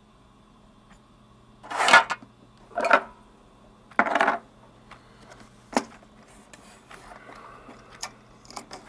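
A plastic weekly pill organizer and other small objects being handled on a tabletop. There are three short scraping noises about a second apart, then a sharp click and a few lighter clicks near the end.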